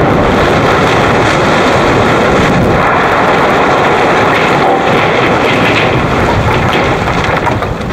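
Steady, heavy roar of a blasted concrete-and-steel building collapsing, debris crashing down in the seconds after the explosive charges fire, easing off near the end.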